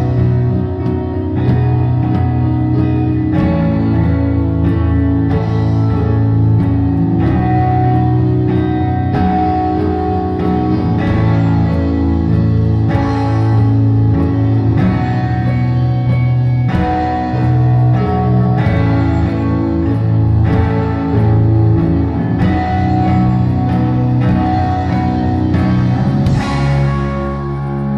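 Live rock band playing an instrumental: electric guitar over bass and drums, with a steady beat. The music changes abruptly near the end.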